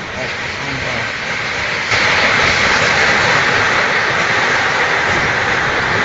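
Typhoon-force wind and driving rain making a steady rushing noise that grows louder about two seconds in.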